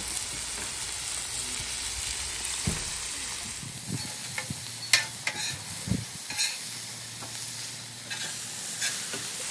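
Sliced vegetables (broccoli, zucchini, squash, mushrooms) sizzling in oil and butter on a Blackstone flat-top griddle. A steel spatula scrapes and taps on the griddle as they are turned, with sharp clicks from about four seconds in.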